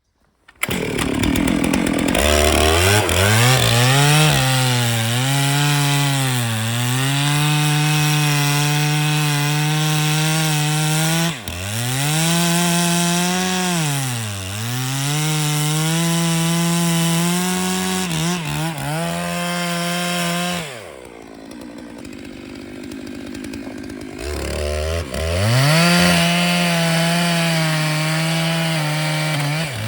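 Stihl MS 880 chainsaw on a chainsaw mill ripping a log at high revs, its pitch sagging and recovering several times as it labours in the cut. About 21 seconds in it drops to idle for a few seconds, then revs back up.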